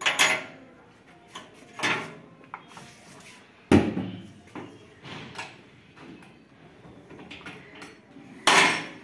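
Spanner and battery hardware clanking against a combine harvester's steel battery box as the batteries are unbolted: a string of sharp metallic knocks and clinks at irregular intervals, the loudest about four seconds in, with another strong one near the end.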